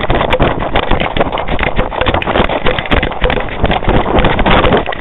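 Loud, rapid, irregular knocking and rubbing with wind buffeting the microphone, from an Eyenimal pet camera on a dog's collar being jostled as the dog runs fast.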